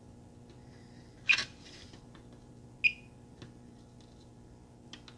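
Multimeter test probes being placed on a circuit board's tiny surface-mount transistor leads. There are a few faint clicks, one louder short scrape-like noise about a second in, and a single brief high chirp near the middle.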